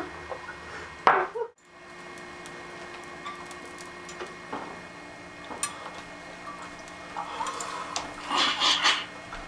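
Kitchen handling noises: a non-stick frying pan moved about on a gas stove with small clicks and knocks, after a short mouth noise about a second in. Near the end comes a louder wet, noisy burst as pancake batter is let out of a mouth into the pan.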